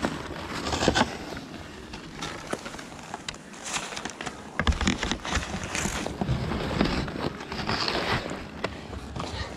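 Ski boots crunching on packed snow, with skis and poles clicking and knocking together as they are picked up and carried.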